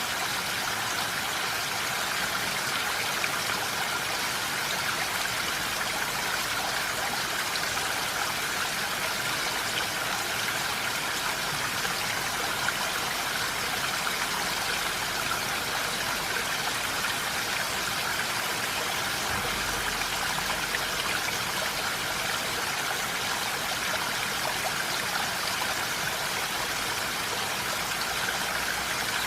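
Steady rain falling in a forest: an even hiss of raindrops on leaves, unchanging throughout.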